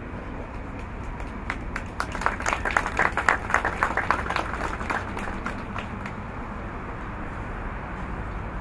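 Applause from a small audience of clapping hands, starting about a second and a half in, strongest for a couple of seconds and then fading out. Beneath it is a steady low background hum.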